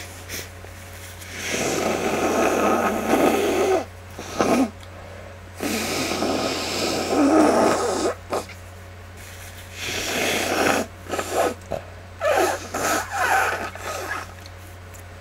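Rough, congested snuffling and breathing through a stuffed-up nose in several long noisy bursts, about seven in all and up to two seconds each, from a person with the flu who is working up to a sneeze. A steady low electrical hum runs underneath.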